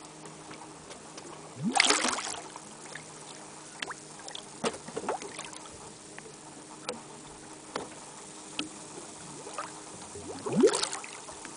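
Sea water slapping and sloshing against the side of a boat, with small drips and ticks and two louder splashes, about two seconds in and again near the end. A faint steady hum runs underneath.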